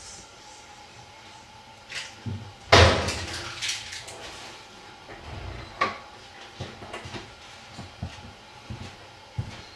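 A series of knocks and bumps, the loudest about three seconds in, over a faint steady hum.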